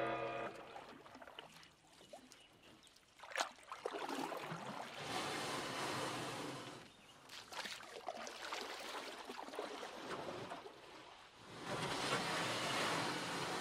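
The music cuts off at the start, then a rushing noise with no tone in it swells and fades in stretches of a few seconds. A brief sharp crackle comes about three and a half seconds in.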